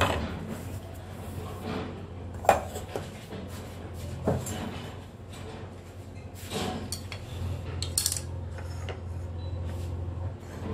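Kitchen dishes and utensils clinking and knocking as they are handled: a handful of scattered sharp knocks, the loudest about two and a half seconds in, over a low steady hum.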